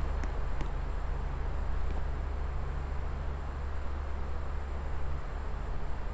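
Wobbly ceiling fan running fast: a steady low motor hum under an even rush of air, with a few light ticks in the first second.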